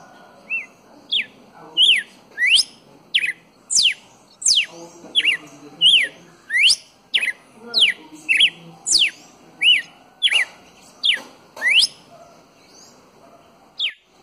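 Red-cowled cardinal singing: a long run of loud, clear whistled notes, each a quick sweep up or down in pitch, about one and a half to two a second, pausing near the end before one last note.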